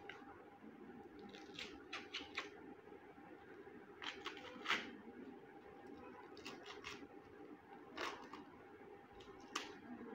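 Fresh ears of sweet corn being husked by hand: the green husks tearing and rustling in short pulls, a handful spaced a second or two apart.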